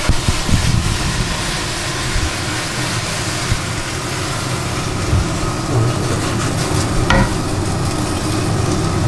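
Minced meat sizzling in a hot frying pan while diced potatoes are tipped in from a steel pot and tumble onto it.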